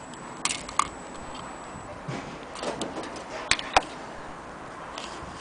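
A few sharp, irregular metallic clicks and some light rustling as an antique French brass clock movement and its hinged bezel are handled on bubble wrap.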